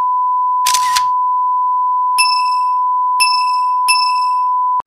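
Steady, unbroken test-tone beep of the kind played over TV colour bars, cutting off abruptly at the end. A short noisy swoosh comes just under a second in, and three bright bell-like dings ring out at about two, three and four seconds in.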